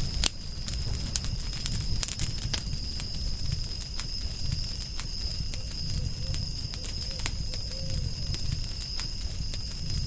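Campfire crackling, with frequent sharp pops and snaps over a low rumble of burning wood. A steady high-pitched whine runs throughout the forest ambience.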